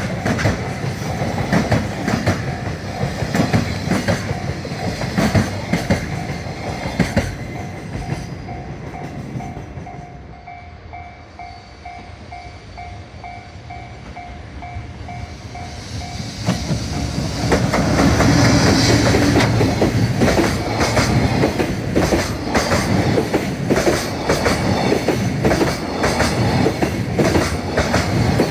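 Freight trains passing over a level crossing, wheels clacking over the rail joints. As the first train fades out, the crossing's warning bell can be heard ringing steadily a few times a second. About seventeen seconds in, another train arrives loudly and rumbles past.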